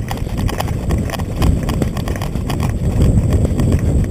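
Running footsteps on a sandy dirt track: a quick, uneven run of thuds over a steady low rumble.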